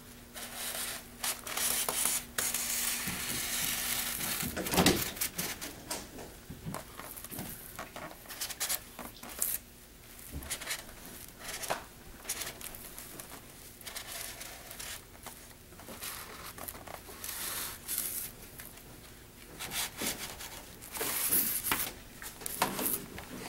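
Felt-tip marker rubbing and scratching across a foam board in irregular strokes while circles are traced, with a single knock about five seconds in.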